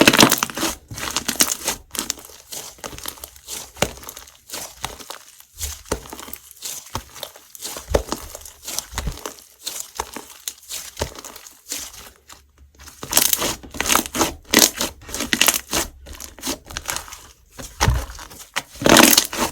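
Hands squishing, stretching and pressing slime, making irregular sticky clicks and crackling pops, with louder flurries of crackles near the end.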